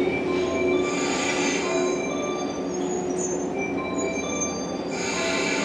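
JR 115 series electric train's wheels and tread brakes squealing as it creeps to a stop at the platform, several high steady tones coming and going over a low rolling rumble.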